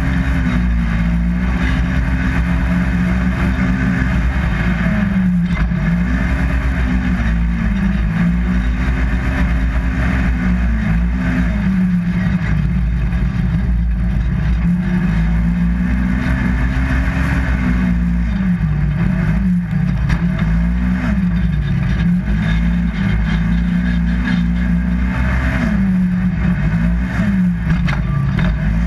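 Polaris RZR 1000XP side-by-side's twin-cylinder engine running hard under racing throttle. Its pitch climbs and drops again every few seconds as the throttle is worked on and off.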